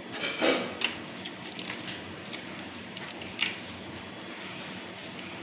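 Eating sounds of a rice meal being eaten by hand: chewing and mouth noises with a few short wet smacks or rustles, the loudest about half a second in and another about three and a half seconds in.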